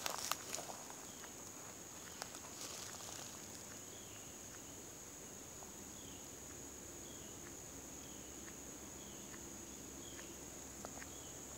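Steady high-pitched buzz of insects in pine woods. Footsteps crackle through dry leaf litter and pine needles for the first few seconds, and faint short chirps repeat about once a second over the buzz.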